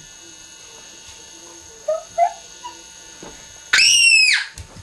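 A short, loud, high-pitched squeal that rises and then falls, lasting under a second near the end, after two brief faint squeaks about two seconds in.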